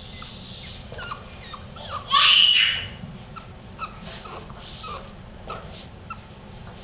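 Six-week-old puppies whimpering and yipping in short, falling squeaks as they play-fight, with one louder yelp a little over two seconds in.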